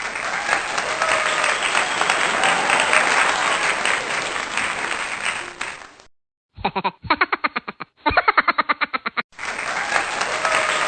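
Crowd noise of applause and chatter, which breaks off about six seconds in. After a short silence comes a quick run of short, repeated voice-like pulses for about three seconds. The crowd noise then returns near the end.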